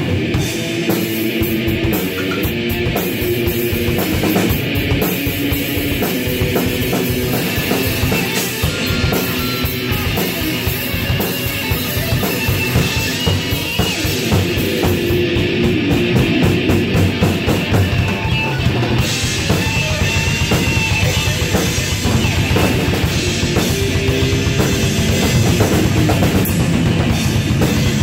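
Electric guitar and drum kit playing an improvised heavy metal jam: guitar riffing over continuous drumming with kick drum, the drum hits growing denser in the second half.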